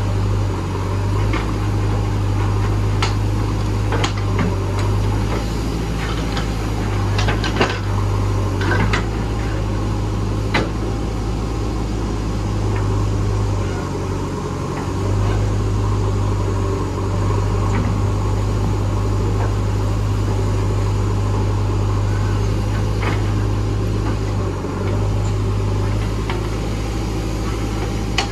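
JCB backhoe loader's diesel engine running steadily, dipping briefly about halfway through, with scattered sharp knocks from the digging work.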